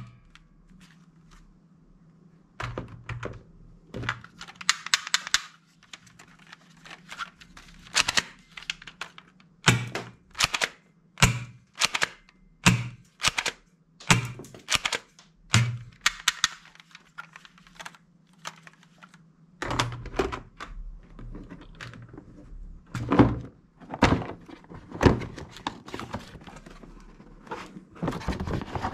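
Hard plastic toy guns being handled: irregular knocks, clicks and clunks as they are picked up, turned over and set down on a tabletop, some of them loud.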